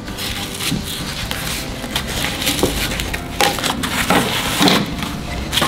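Packing material being pulled off a new cast iron grill pan and its handle: irregular crackling, rustling and tearing.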